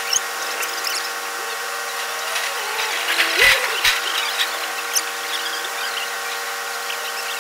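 Crane machinery running with a steady mechanical whine of several tones. Its pitch bends up and down a few times, most clearly about three and a half seconds in, where a couple of low knocks come with it.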